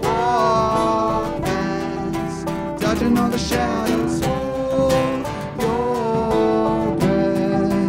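Live folk band music: plucked acoustic guitar chords with a held, gliding melody line over them.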